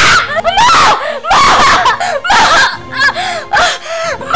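Repeated loud, high-pitched vocal shrieks in short bursts, the pitch arching up and down, over background music.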